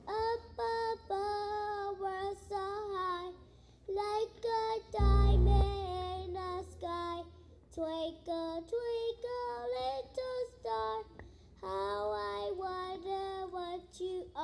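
A young girl singing solo into a handheld microphone, with held notes in phrases separated by short pauses and no accompaniment. A brief low thump about five seconds in.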